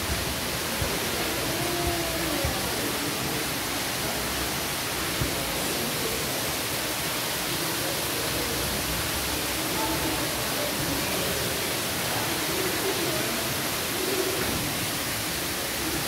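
Steady rushing of a small artificial waterfall splashing down rocks, with faint voices murmuring in the background.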